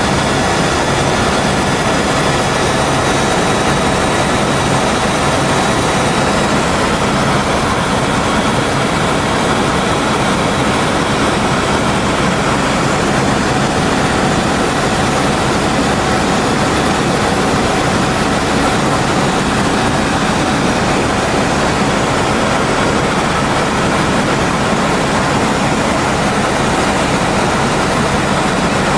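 Helicopter cabin noise: the engine and rotor running steadily in flight, an even rush with a faint constant whine on top, heard from inside the cabin.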